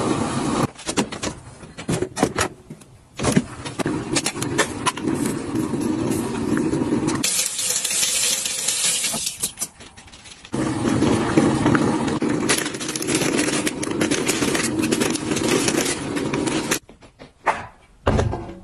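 Cooking sounds at a gas hob: a small stainless saucepan simmering, with rustling and light clicks and clinks as ingredients are added and stirred in. It turns quieter near the end.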